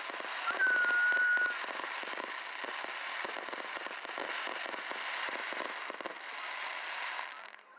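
Fireworks crackling: a dense, rapid run of small pops, with a short, steady high whistle about half a second in. The crackling cuts off suddenly near the end.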